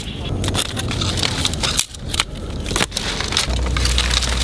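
Dry sticks and twigs being handled and worked by hand, giving a dense, irregular crackling and scraping of wood. A low rumble comes in near the end.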